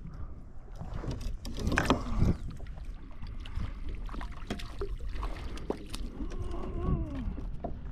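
Knocks and clatter of a landing net and rod against a plastic fishing kayak, with water splashing as a hooked catfish is brought alongside, over a low wind rumble on the microphone. The loudest knocks and splashes come about two seconds in.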